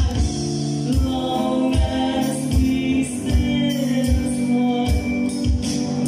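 Live band music: a man singing into a microphone over acoustic guitar, with a steady kick-drum beat a little under once a second.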